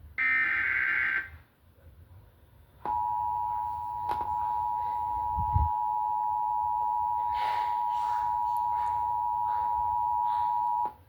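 Emergency Alert System broadcast signals: a SAME digital header burst, a raspy warbling data tone about a second long, then after a short gap the EAS two-tone attention signal (853 and 960 Hz together), held steady for about eight seconds and cut off sharply, announcing a severe thunderstorm warning.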